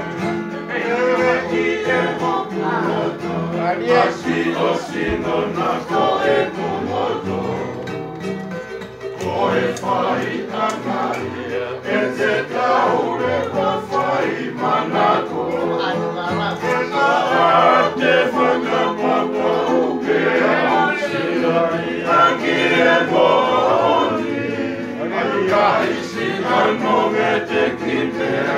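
A group of men and women singing a Tongan song together, accompanied by strummed acoustic guitar and ukuleles.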